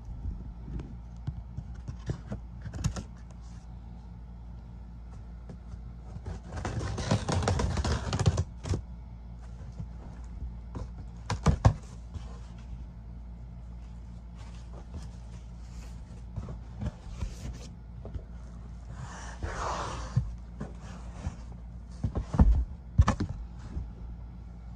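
Cardboard shipping box being opened and handled by hand: scattered clicks, scrapes and knocks. A longer rustling stretch comes about seven seconds in and another around twenty seconds. A steady low hum runs underneath.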